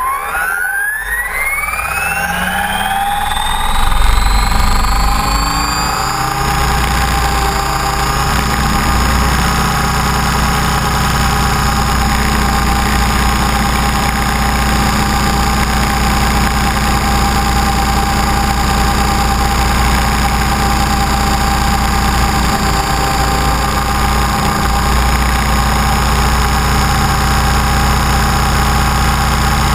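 Align T-Rex 550E electric RC helicopter heard from its onboard camera: the motor and rotor spool up with a rising whine over the first six seconds, then run at a steady high pitch with a low rotor drone through takeoff and flight.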